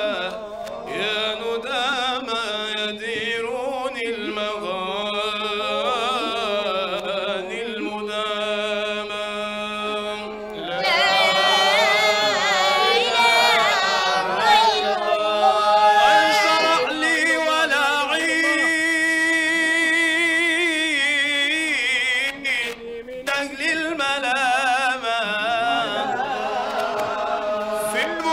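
Male voice chanting a maulidi (mawlid) poem into a microphone in a slow, melismatic line with wavering ornaments. It grows louder and fuller about eleven seconds in.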